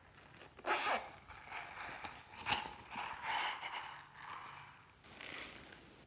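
Hands squishing and folding glossy slime: an irregular run of wet squelches and crackling clicks, the loudest about a second in, with a longer, hissier squish near the end.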